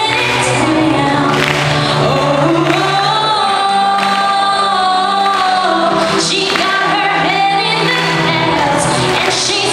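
A girl singing an English song solo through a handheld microphone over musical accompaniment, holding one long note in the middle.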